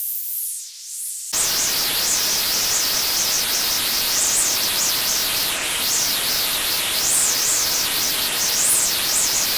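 Sped-up sound-effect noise: a thin high hiss that jumps about a second in to loud static-like noise across the whole range, with a wavering, up-and-down sweep in the treble.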